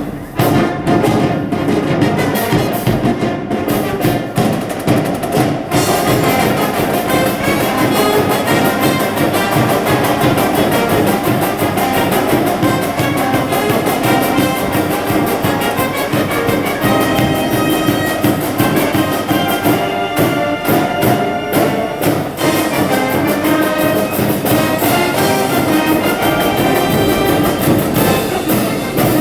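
High-school brass band playing a baseball cheering tune, brass over a steady drum beat.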